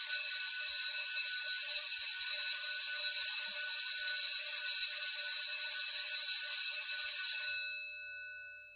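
Electric school bell ringing continuously with a fast rattle. It cuts off about seven and a half seconds in, and the gong's tone rings on and fades.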